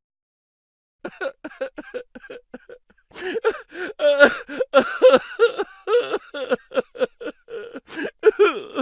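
Laughter sound effect: a person laughing in quick repeated bursts, starting about a second in and growing louder about two seconds later.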